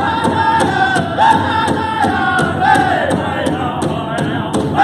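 Powwow drum group singing in high voices, phrases starting high and falling, over a steady, even beat on a large powwow drum.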